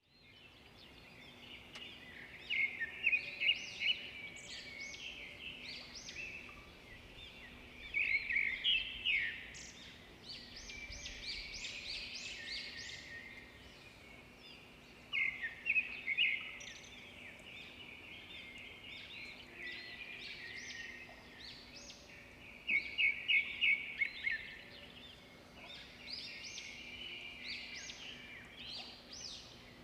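Duckling peeping: runs of quick, high peeps every few seconds, with quieter scattered peeps between them. A faint steady hum runs underneath.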